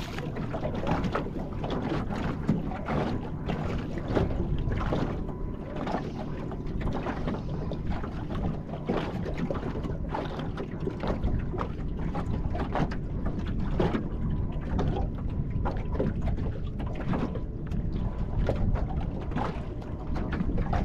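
Small waves lapping and slapping irregularly against the hull of a small open boat, over a steady low rumble of wind on the microphone.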